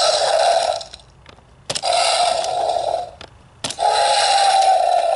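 Jurassic World Dino Trackers Hunt 'N Chomp Tyrannosaurus rex toy playing its electronic chomp sound effects through its small built-in speaker: three short, harsh bursts, each about a second and a half long with brief pauses between.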